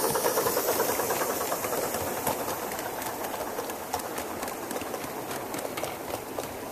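Gauge 1 live steam model train running past: rapid exhaust beats fade as the locomotive moves away, while the wheels of the coaches and goods wagons click over the rail joints.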